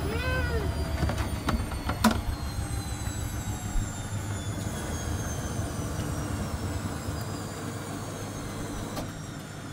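Front-loading washing machine in its wash cycle: the drum motor running with a low rumble as the drum turns the wet laundry, and a faint whine that falls slowly in pitch. A sharp click about two seconds in, and the low rumble drops away near the end as the drum slows.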